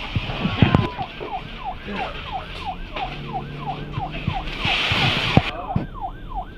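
Electronic fire alarm sounder going off: a falling siren tone repeating about three times a second, with a couple of sharp knocks about half a second in.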